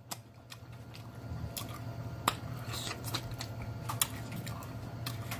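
Close-miked chewing: wet mouth clicks and smacks as a man bites and chews food, over a low steady hum.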